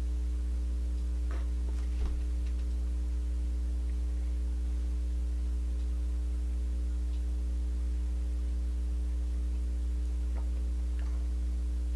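Steady low electrical hum with a few faint steady overtones above it, and a couple of faint small clicks.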